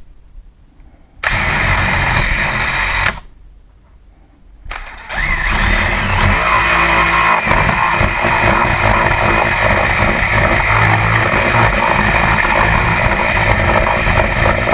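Power drill with a 10 mm twist bit boring through a hollow door. The motor stops twice briefly in the first five seconds, then runs steadily.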